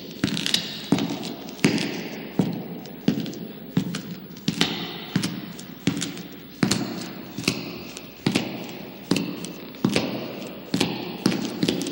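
Heavy footsteps walking at a steady pace in a tunnel, each step a sharp thud followed by a ringing echo. There are about four steps every three seconds.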